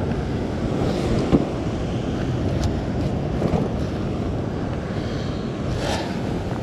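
Steady wind rumbling on the microphone over the wash of ocean surf breaking on a rock ledge.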